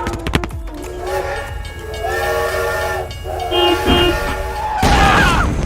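Train horn blowing two long blasts, each a steady chord of several tones, the first about two seconds in and the second about a second later.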